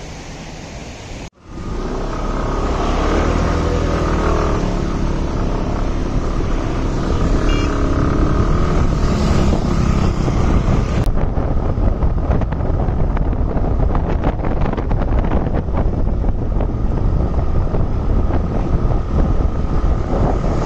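A motor vehicle travelling, a steady engine and road rumble under a haze of noise. The sound cuts out briefly about a second in and shifts character about halfway through, becoming rougher and more crackly.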